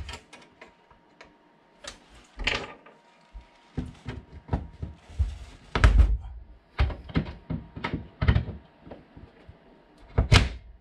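Pliers working small steel track pins out of model railway track. There is a run of irregular sharp clicks and knocks as the tool grips, levers and taps against the rails and the wooden baseboard, with the loudest knocks about six seconds in and near the end.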